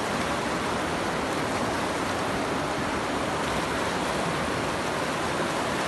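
Turbulent river current rushing through rapids: a steady, even rush of water with no breaks.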